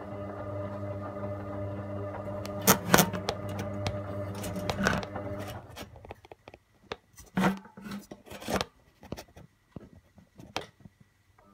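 Hotpoint Aquarius WD62X washer-dryer in its main wash: the drum motor hums steadily as the drum tumbles wet laundry, with thuds and splashes of the load falling. About halfway through the motor stops and the drum rests, leaving a few soft thuds and sloshes, and the motor starts again at the very end.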